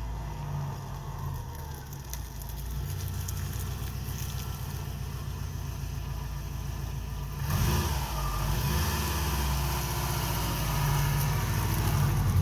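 2002 Subaru WRX's turbocharged flat-four running through a gutted downpipe. About seven and a half seconds in, the engine and exhaust note jumps suddenly louder and fuller, then keeps building toward the end.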